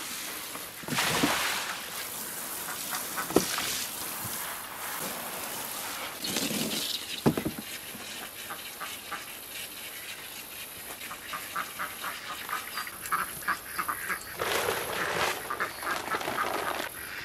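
Pekin ducks quacking, with quick runs of short calls in the second half. Around the middle, water pours and splashes from a hose into a plastic paddling pool.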